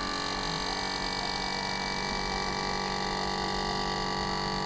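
CMC 130 power tilt and trim unit's electric motor and hydraulic pump running steadily as it drives the unit down, a continuous even hum.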